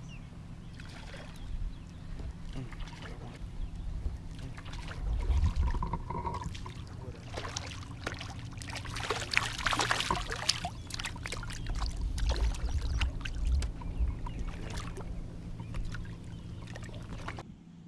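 Water splashing and sloshing as a landing net is dipped into the lake and moved through it, loudest about halfway through, over a steady low hum.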